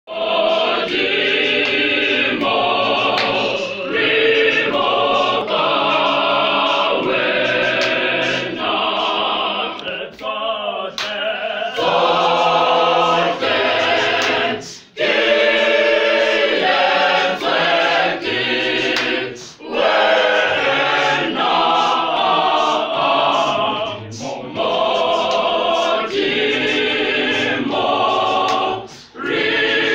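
Mixed school choir of boys and girls singing a cappella in harmony, sustained chords sung in phrases with brief pauses between them.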